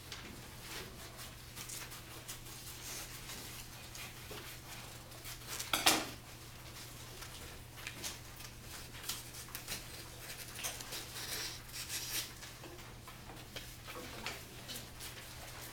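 Classroom work sounds: paper rustling and scissors snipping as students cut out handouts, scattered small clicks and clatter, with one louder knock about six seconds in, over a steady low hum.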